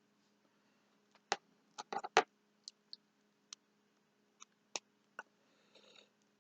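Plastic action figures being handled: a dozen or so sharp clicks and taps at irregular intervals, several bunched together about two seconds in, followed by a faint rustle.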